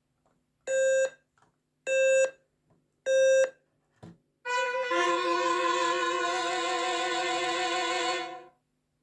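A Lego robot's speaker beeps Morse code: three even beeps of about half a second each, the three dashes of the letter O. After them comes a ringing bell sound of about four seconds with several pitches, which marks the end of the letter.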